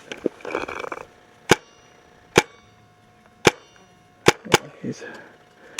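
Paintball marker firing single shots about a second apart, each a sharp pop, with two in quick succession near the end.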